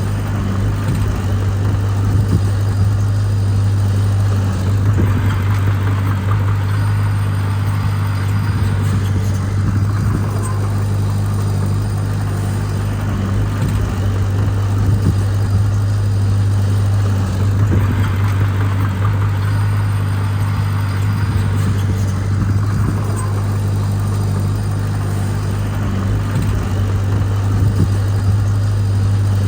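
Heavy diesel engine of earthmoving machinery running steadily at a low hum, with the working noise swelling and easing every four to five seconds as the load comes and goes.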